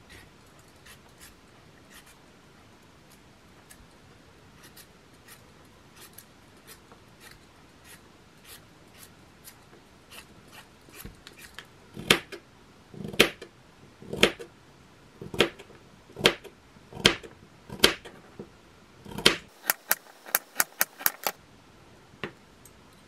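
Knife blade cutting and shaving strips off a raw carrot, one stroke at a time. The strokes are faint at first, then about halfway through come about a dozen loud crisp cuts roughly a second apart, ending in a quick run of short strokes.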